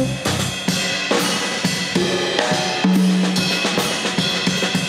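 Live jazz trio with the drum kit to the fore: snare, bass drum and cymbal strokes, and a held low note about three seconds in.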